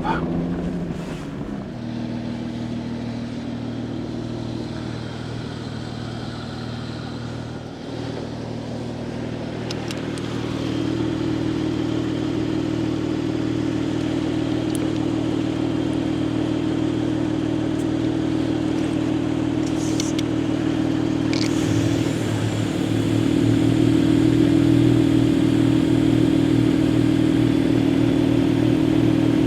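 Vehicle engine running steadily with a low even hum, getting a little louder about ten seconds in and louder again a little past twenty seconds.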